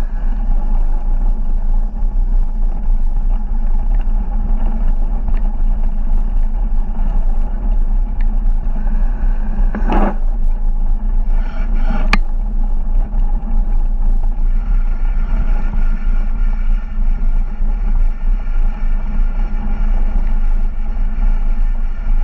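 Steady low rumble of wind and rolling noise on a camera mic moving along a gravel track, with two sharp knocks about ten and twelve seconds in.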